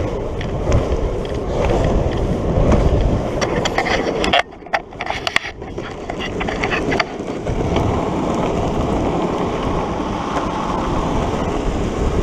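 Longboard wheels rolling on a tarmac path, a steady rumble. About four and a half seconds in the rumble drops away for a second or so, with a few clicks, then picks up again.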